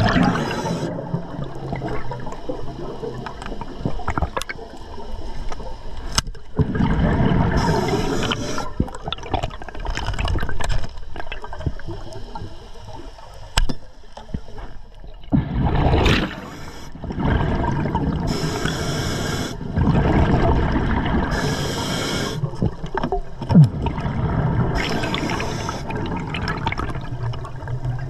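A scuba diver breathing underwater through an Atomic regulator: each exhale is a burst of rushing, gurgling bubbles, several times over, with a hiss on the inhales in between.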